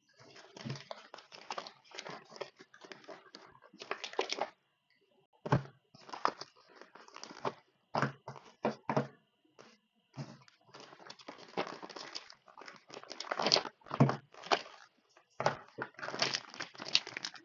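Plastic packaging crinkling and rustling in irregular bursts as brushless drone motors are unwrapped and taken out by hand.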